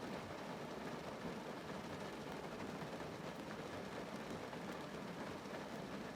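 Steady rain pattering on a car, heard from inside the cabin: an even, continuous wash of drops.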